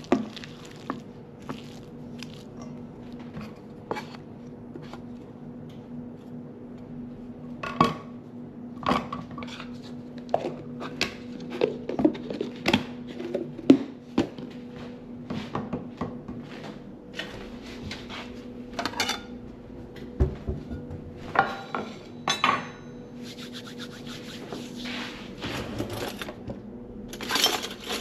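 Spatula scraping and knocking against a stainless steel mixing bowl while stirring a thick, wet oat mixture, in irregular strokes over a faint steady hum. Near the end, a cutlery drawer is opened and the utensils in it clatter.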